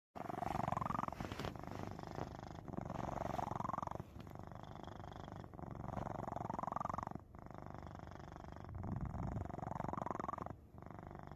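Cat snoring in its sleep: a continuous raspy rattle that swells with each breath, four slow breaths, each loud phase rising in pitch.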